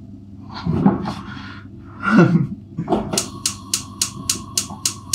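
A couple of kitchen handling knocks, then, from about three seconds in, the rapid even clicking of a gas hob's spark igniter, about four clicks a second, with a steady high tone under it.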